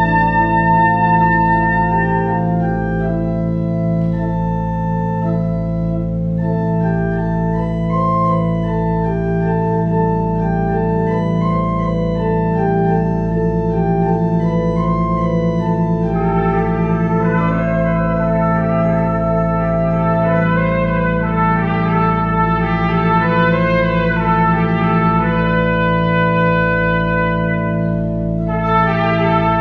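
Trumpet playing a melody over long held organ chords.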